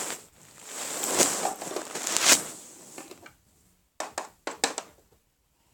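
Hands moving small plastic Playmobil and Pinypon toy figures: a rustling shuffle, then several light plastic clicks and taps as pieces are set down.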